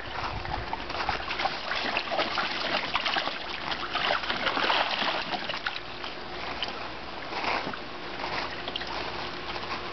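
Water splashing and sloshing continuously in a shallow plastic kiddie pool as dogs wade and paw about in it.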